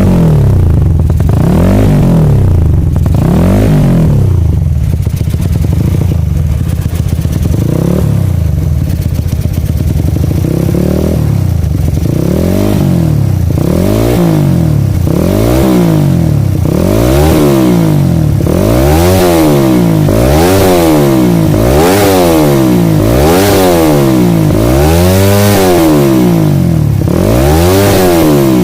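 Motorcycle engine breathing through a carbon-Kevlar aftermarket silencer (Lone Rider Akap 8), the throttle blipped over and over so that each rev rises and falls in pitch. The revs are spaced out at first, then come quicker, about one a second, from about halfway in.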